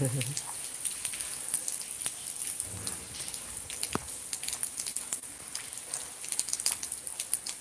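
Heavy rain falling steadily, a constant hiss with many close drops ticking sharply on hard surfaces.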